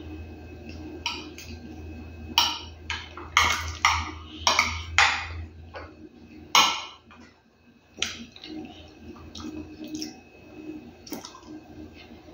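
A metal spoon scraping and clinking against a plate of food in short, irregular strokes, busiest in the first half. A low steady hum underneath stops about halfway through.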